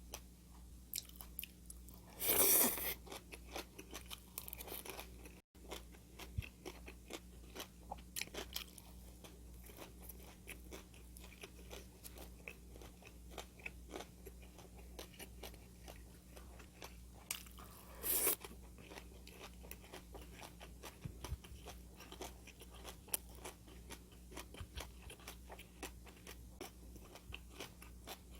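Close-miked eating: a person biting and chewing crunchy food, with many small wet crunches and two louder crunchy bites, about two seconds in and again around eighteen seconds.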